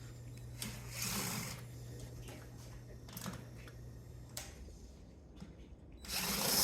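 Hand tools scraping and clicking against sheet metal and parts during a teardown of a scrap spot welder, with two louder scrapes, one about a second in and one near the end. A steady low hum runs under it and cuts off about four and a half seconds in.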